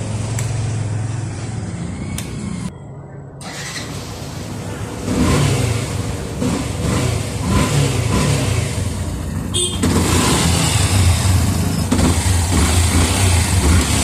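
Yamaha FZS V2's single-cylinder engine running on a test after a secondhand cam chain tensioner is fitted, to check for timing chain noise; it gets louder from about five seconds in, as if revved.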